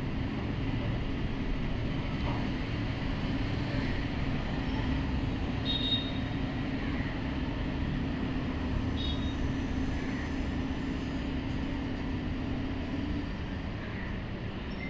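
A steady low hum and rumble; its steady tone drops out near the end. Over it come faint scrapes of a metal spoon mixing a thick spice paste in a steel bowl.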